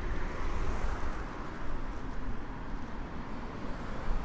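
Road traffic on a city street: a steady wash of car engine and tyre noise, swelling briefly in the first second as a vehicle passes.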